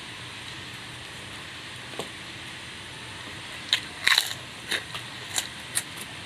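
Crunching of crispy food being bitten and chewed close to the microphone: a run of sharp crunches beginning a little past halfway, over a steady background hiss.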